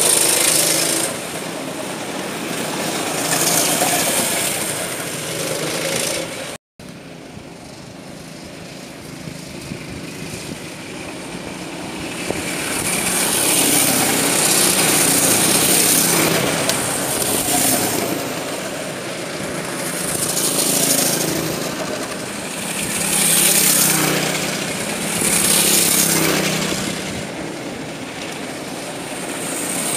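Racing go-karts passing close by, their small engines swelling and fading as each kart goes past, several times over. About seven seconds in, the sound cuts out for a split second.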